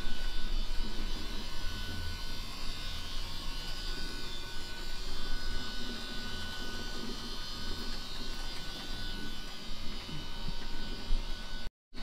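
Electric drive gear motor of a homemade bandsaw mill running with a steady buzz, driving the saw carriage along its rails by chain and sprocket. The sound drops out for a moment just before the end.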